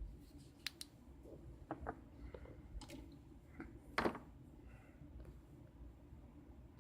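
Scattered light clicks and taps of small metal lock parts being handled, about half a dozen in all, the sharpest about four seconds in.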